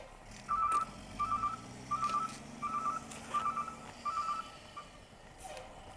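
Garbage truck's reversing alarm beeping steadily, about one beep every 0.7 s, six beeps and a clipped seventh before it stops near the end: the truck is in reverse. Its engine runs underneath, rising slightly in pitch.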